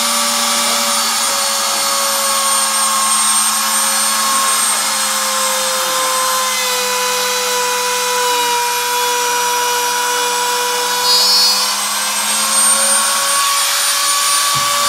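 Corded trim router running continuously, cutting into a wooden door-frame head to make the recess for a drop-bolt lock. Its steady high whine drops slightly in pitch midway as the bit takes load, then climbs back near the end.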